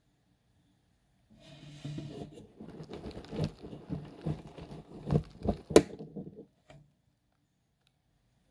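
Dry rustling and crackling of aspen shavings bedding being stirred, with scattered sharp clicks. It lasts about five seconds; the loudest click comes near its end, then it stops.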